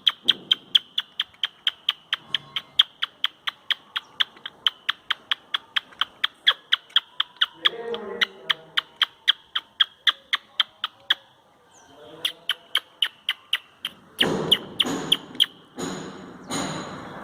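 Squirrel giving a rapid alarm chatter of short, sharp chips, about five a second, with a brief pause a little past the middle. Near the end the calls turn louder and harsher.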